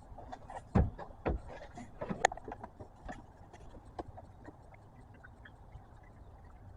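Handling a plastic oil jug and pour spout at the engine's filler neck, a few knocks and clicks in the first four seconds, the loudest about a second in, then faint ticks as new motor oil starts to go in.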